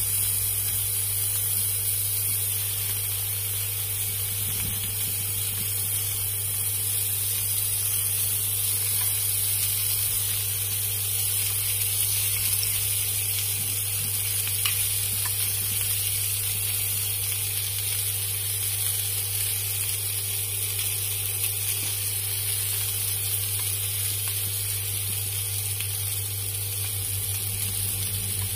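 Clams in their shells sizzling steadily on a hot pan as their juices steam off, with a steady low hum underneath.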